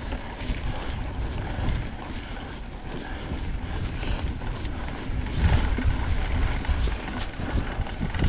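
Mountain bike riding noise: wind buffeting the microphone over tyres rolling on a dirt trail, with scattered short clicks and rattles from the bike. The rumble grows louder about halfway through.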